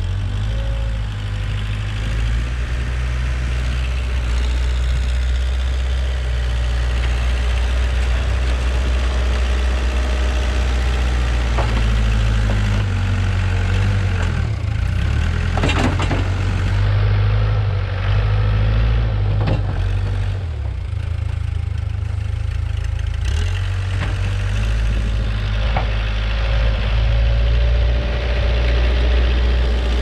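1989 Case 580K backhoe's four-cylinder diesel engine running as the machine pushes deep snow with its front loader bucket, the engine note shifting as it works, with a few sharp clunks along the way.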